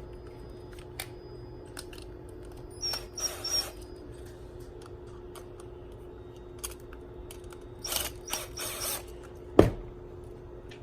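Clicks and scraping from a 22 mm push button switch and its parts being handled, with a sharp knock near the end, over a steady low hum.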